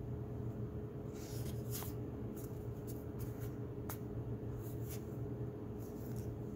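Stiff game cards sliding over one another as a hand flips through a deck, with a few short soft snaps, over a steady low hum of room noise.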